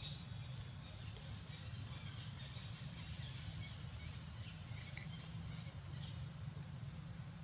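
Outdoor ambience: a steady high insect drone over a low steady rumble, with a few faint clicks about five seconds in.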